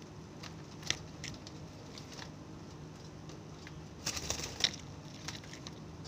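Zebra doves moving about in a wire cage: a few light taps and scrapes, then a short flurry of clicks and rustling about four seconds in, over a faint steady low hum.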